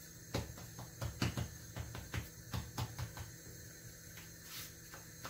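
Hands patting and slapping a ball of soft batbout bread dough to flatten it into a thin round: a quick run of about a dozen soft smacks over roughly three seconds.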